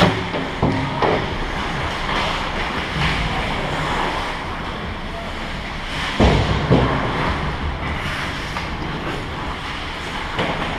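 Ice hockey game in an indoor rink: a steady rushing noise of skates and arena air, broken by sharp knocks about a second in and a louder pair of knocks around six seconds in.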